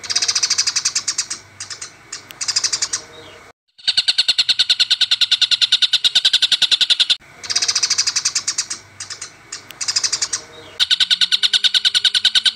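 Harsh, rapid chattering calls of fighting Eurasian tree sparrows mixed with Oriental dollarbird calls, in long fast trains of about ten notes a second broken by short pauses. It is a looped bird-song training recording: the opening passage repeats about seven seconds in.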